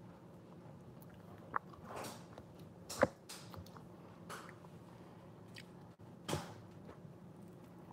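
Biting and chewing a sugar-coated gummy candy close to the microphone: a handful of short, faint crunches and mouth clicks, the sharpest about three seconds in.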